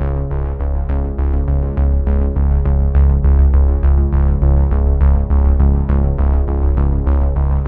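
Electronic background music: synthesizer over a quick, steady beat.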